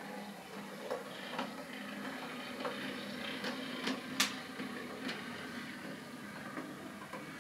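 Bachmann OO gauge Class 20 model locomotive running along the track: a steady small-motor hum with scattered light clicks, the sharpest about four seconds in.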